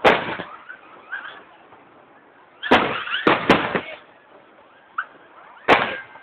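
Aerial firework shells exploding: a bang at the start, three in quick succession about midway, a small pop, then a last bang near the end, each dying away over a fraction of a second.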